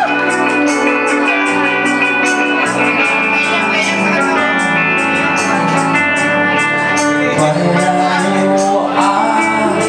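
Live acoustic band music: strummed acoustic guitars holding sustained chords over an even, steady percussion beat, with a voice singing.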